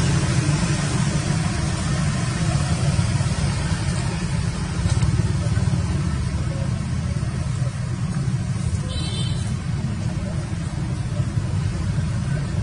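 Steady low rumbling background noise, with a brief high-pitched squeak about nine seconds in.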